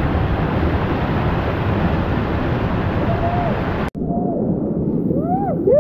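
Whitewater rapids rushing loudly, a steady churning-water noise. It breaks off for an instant about four seconds in, then carries on slightly thinner.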